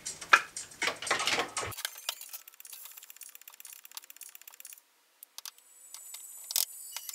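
Glass jars and small containers clinking and clicking as they are handled on a kitchen counter. A quick run of clinks comes in the first second and a half, then faint scattered ticks and one sharper click near the end.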